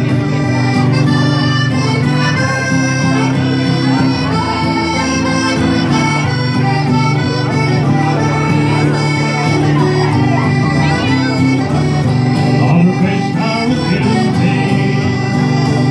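Piano accordion playing a lively traditional Irish tune over strummed acoustic guitar, an instrumental passage without singing.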